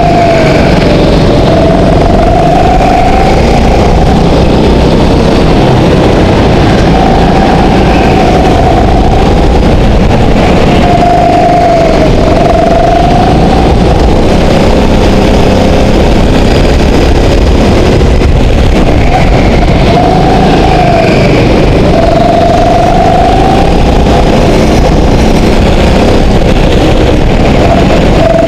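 Go-kart engine heard onboard while lapping a track. It is a loud, steady engine note whose pitch climbs and then drops again, several times over, as the kart accelerates and slows through the corners.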